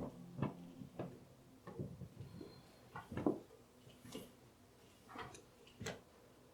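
Faint, irregular light clicks and knocks, about one every half second to a second.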